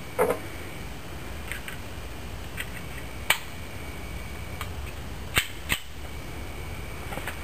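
Sharp metallic clicks from handling a Jimenez Arms .25 ACP pocket pistol and its small magazine: four clean clicks, the last two close together, with a few fainter ticks between.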